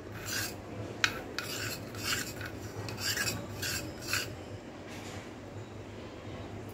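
Steel spoon stirring soaked jaggery into water in a stainless-steel bowl, scraping against the bowl in quick strokes, about two or three a second, that stop about four seconds in.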